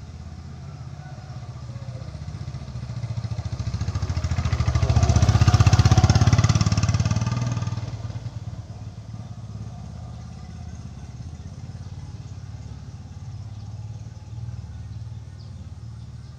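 A motor vehicle's engine, most like a motorcycle, passes close by: it grows louder over a few seconds, is loudest about six seconds in, then fades away. A low steady engine hum runs underneath.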